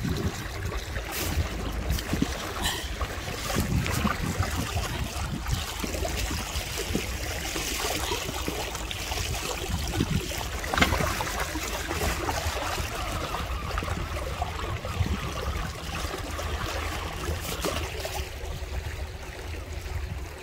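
Sea water splashing and trickling against the hull of an inflatable kayak moving through a strong current, over a steady low rumble, with scattered small knocks and splashes.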